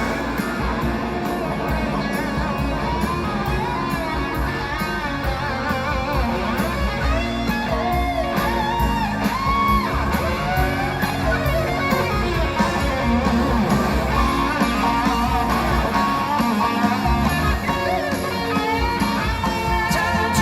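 Live band playing the instrumental intro of a song, guitar to the fore over a steady beat.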